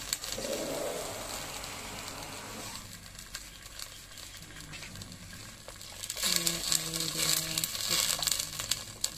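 Food sizzling in a clay pot of fried shallots and chicken fat, easing off after about three seconds, then louder crackling and rustling in the last three seconds.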